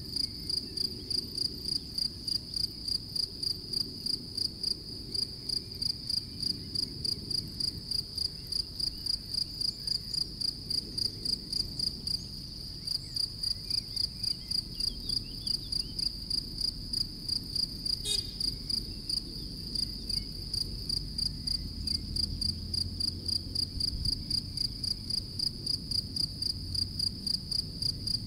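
European field cricket (Gryllus campestris) singing: a steady train of shrill chirps, about three a second, with a brief break about twelve seconds in.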